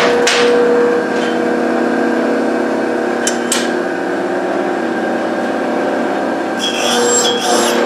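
Sunnen rod cap grinder running with a steady motor hum, with clicks as the rod fixture is clamped and moved. From about six and a half seconds in, a rasping grind as the connecting-rod cap faces meet the wheel, an even cut that sounds the way a properly cutting cap should.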